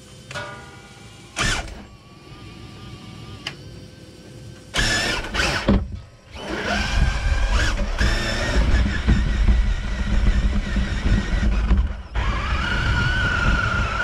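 Traxxas TRX-4 RC crawler driving, its electric motor and geared drivetrain whining, with a few sharp bursts of noise as it bumps along. From about six seconds in, tyre and ground noise grows loud and steady, and near the end the motor whine rises in pitch as the truck speeds up.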